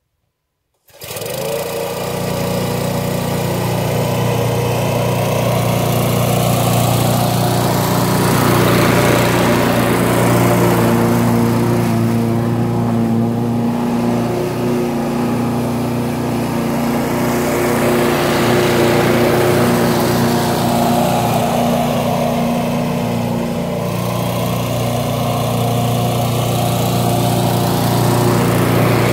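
Petrol walk-behind rotary lawnmower with a Briggs & Stratton engine, coming in suddenly about a second in and then running steadily as it is pushed across the lawn.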